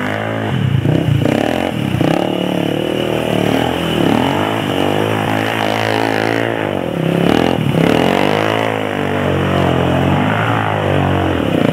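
Honda 300EX ATV's single-cylinder four-stroke engine revving up and down repeatedly as the rider works the throttle.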